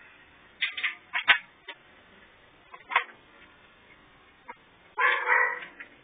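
Sharp plastic clicks and knocks as a Whirlpool Cabrio washer's door-lock harness connectors are worked loose by hand. There is a quick cluster in the first second and one more about three seconds in, then a louder, rougher sound lasting about half a second near the end.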